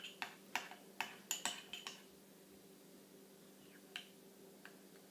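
Spoon clicking against a bowl as jelly is stirred. Quick clicks come several a second for about two seconds, then stop, with two lone clicks later.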